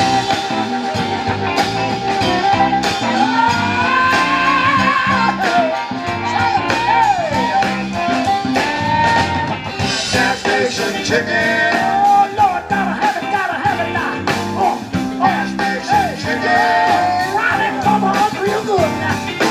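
Live blues band playing, with a lead instrument sustaining and bending notes over bass and drums.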